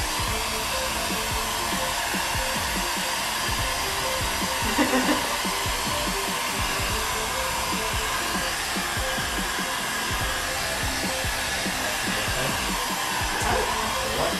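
Heat gun blowing steadily, an even rush of hot air.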